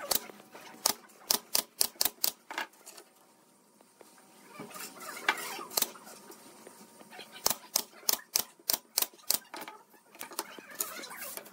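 Pneumatic nail gun firing brads into thin pine strips: a quick run of about eight sharp shots in the first three seconds, a pause, then another run of shots from about seven and a half seconds in.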